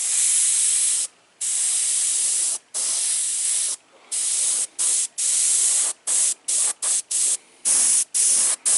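Airbrush spraying in bursts of hiss as the trigger is pressed and released, laying down light hazing passes of paint. The bursts run about a second each at first, then come shorter and quicker in the second half.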